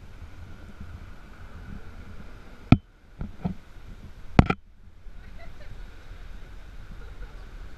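Off-road vehicle rumbling low and steady, with two sharp knocks about a second and a half apart in the middle and a few lighter knocks between them.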